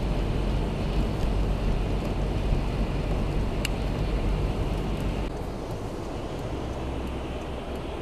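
Steady outdoor rumble of passing road traffic, with a sudden drop in level about five seconds in.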